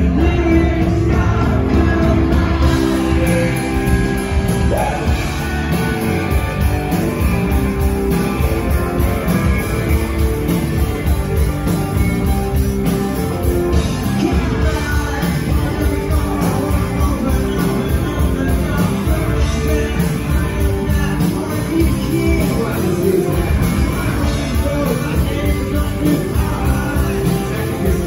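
Rock band playing live and loud in a concert hall: electric guitar, bass and drums driving steadily, with a male lead singer singing over them.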